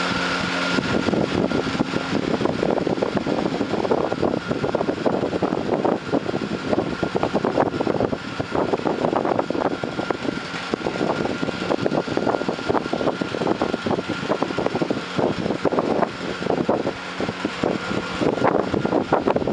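Large steel drum fitted with radial blades spinning in its frame. It makes a dense, irregular rattle and whoosh with a faint steady whine over it, taking over from a steady hum just under a second in.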